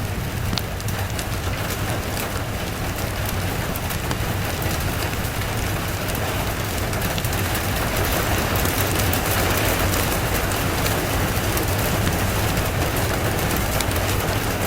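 Steady rain falling, with fine drop ticks and a low continuous rumble beneath, swelling a little about halfway through.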